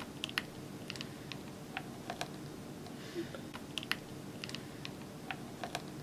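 Thick kulfi mixture pouring in a thin stream into a silicone popsicle mold, heard as faint, irregular small clicks and plops.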